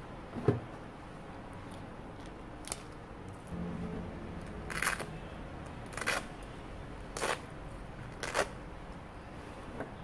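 A thump about half a second in, then four short rasps about a second apart: a hook-and-loop (Velcro) patch being pulled off and pressed back onto a canvas drawstring bag.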